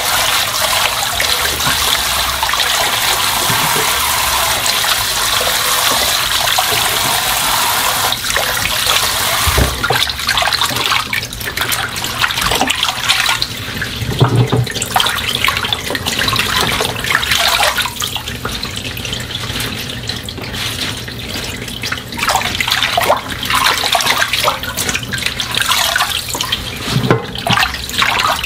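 Kitchen tap running into a stainless-steel bowl of water and young radish greens. About ten seconds in the steady flow gives way to uneven splashing and swishing as hands shake the greens through the water to rinse them.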